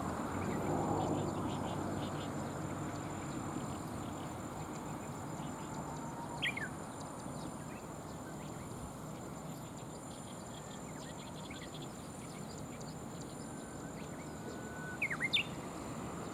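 Outdoor ambience with a steady low rush, broken by short, sharply falling bird calls: one about six seconds in and a quick run of about three near the end.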